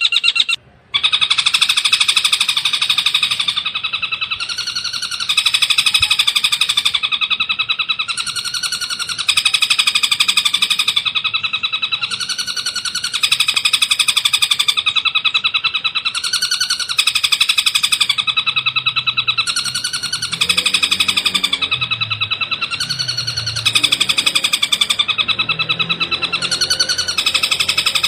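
Long-tailed shrike (cendet) song: a fast, high chattering trill repeated in phrases about two seconds long, played as a master recording for caged birds to learn from.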